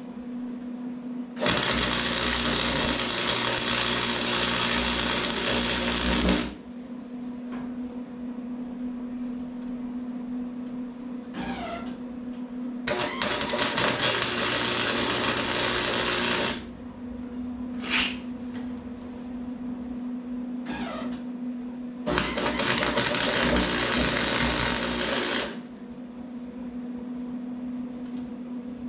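Arc welder laying three welds, each a steady crackle lasting four to five seconds, with a steady hum and a few short squeaks in the pauses between.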